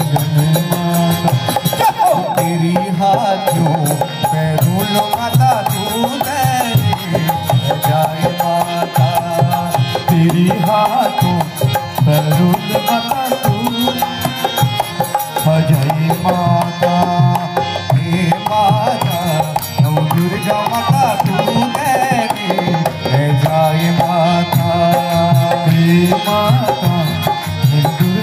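Live Hindu devotional bhajan music: a harmonium carrying the melody over a tabla rhythm, played through a small PA.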